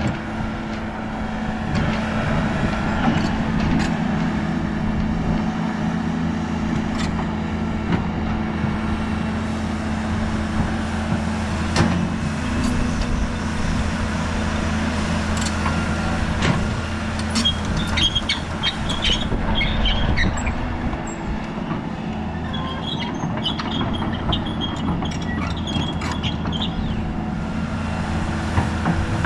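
Heavy diesel excavator engine running steadily under load, with scattered sharp metal clanks and, from about halfway through, a run of high-pitched metallic squeals.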